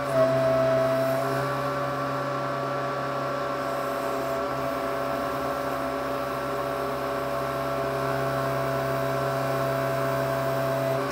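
Case 580C backhoe's engine running steadily under the hydraulics as the boom swings and lowers, heard from inside the cab. A higher whine stands out for about a second near the start.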